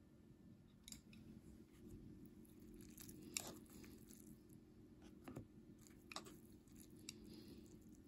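Faint scattered clicks and scrapes of wooden chopsticks against a Cup Noodle cup and the cup being handled as the noodles are stirred and lifted, with one sharper knock about three and a half seconds in.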